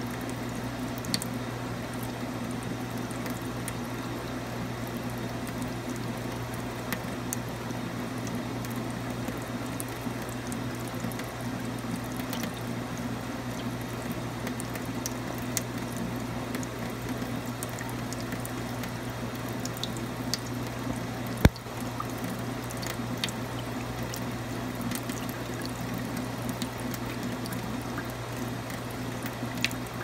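Water from a drinking fountain running down the stainless-steel basin's drain grate, a steady trickle over a steady low hum. One sharp click about two-thirds of the way through.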